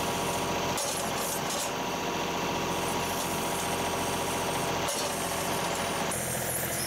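John Deere 2038R compact tractor's three-cylinder diesel engine running steadily as it drives the 270B backhoe, digging and lifting a bucket of soil.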